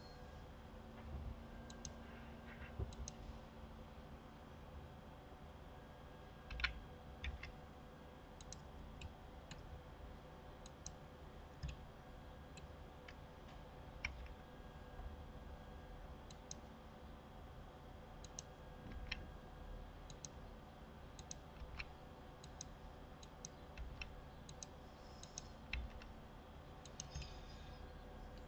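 Faint, irregular clicks of a computer mouse and keyboard used in modelling work, over a low steady hum.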